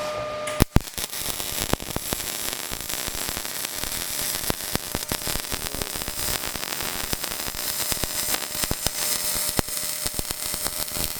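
Arc welding on a steel swing arm: a steady crackling sizzle full of sharp pops that strikes up about half a second in.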